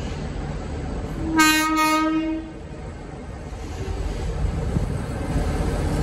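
Diesel freight locomotive VL357's horn sounding one short blast of its low note, a little over a second long, about a second in. Under it the locomotives' engines rumble, growing louder as they draw nearer.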